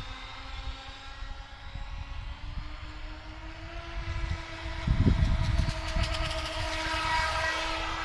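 Electric motor of a homemade RC trimaran boat running on a 4S LiPo, a steady whine that rises a little in pitch and grows louder and brighter over the last few seconds as the boat comes closer. A brief low rumble comes about five seconds in.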